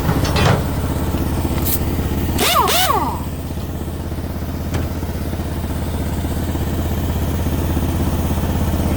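An engine idling steadily with a low, even hum, with a few short clicks and a brief clattering noise in the first few seconds.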